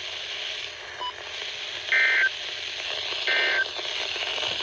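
NOAA Weather Radio SAME end-of-message data bursts: short, buzzy two-tone bursts about 1.3 seconds apart over steady radio hiss, the third starting at the very end. They signal the end of the emergency alert message.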